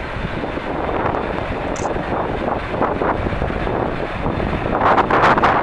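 Airbus A380 jet engines running at taxi power under heavy wind buffeting on the microphone; the wind gusts grow louder near the end.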